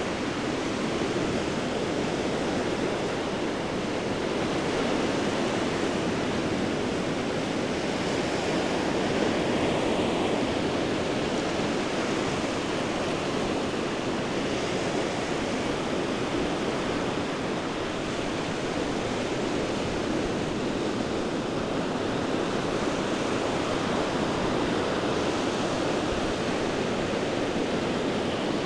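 Small waves breaking and washing up a sandy beach: a steady wash of surf that swells gently now and then.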